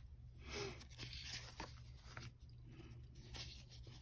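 Faint rustling and sliding of paper sticker sheets as they are handled and turned over, over a low steady room hum.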